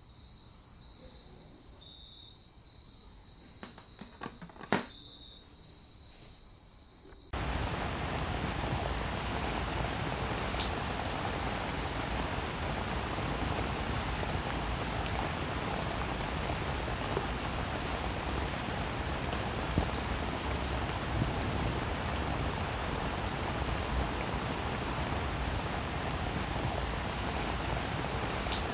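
Faint high chirping like crickets with a few sharp clicks, the loudest about five seconds in. Then, about seven seconds in, a steady rain sound cuts in abruptly and holds even.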